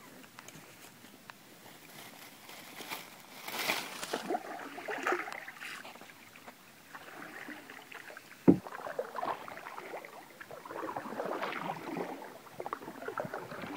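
Canoe paddling: water splashing and dripping off the paddle blade in irregular strokes, with one sharp knock about two-thirds of the way through.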